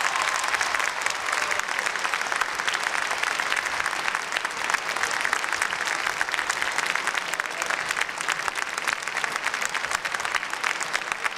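Audience applauding: many hands clapping steadily in one dense, even wash of claps.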